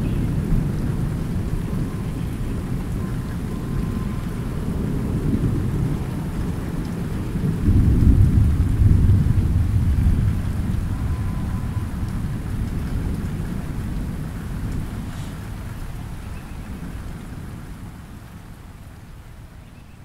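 Thunder rumbling over steady light rain, with a louder roll about eight seconds in that then slowly dies away.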